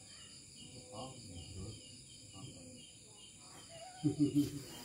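Crickets chirping steadily in a quick even rhythm, with faint voices behind them and a brief, louder, low-pitched voice-like sound about four seconds in.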